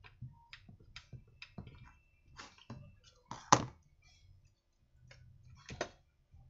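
Hand tools clicking and clinking on a workbench as tools are handled and put down in a metal tool tray. There is a sharp metal clank about three and a half seconds in and another knock near the end.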